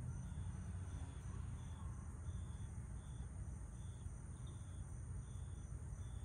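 A cricket chirping steadily, short high chirps about twice a second, over a faint low rumble.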